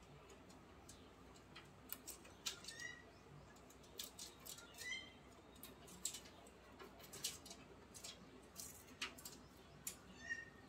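A few short, faint chirping calls from a small caged pet, scattered among light clicks and taps.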